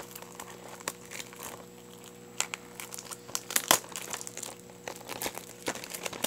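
Blu-ray packaging being handled and unwrapped: plastic wrap and slipcover crinkling and crackling in irregular snaps.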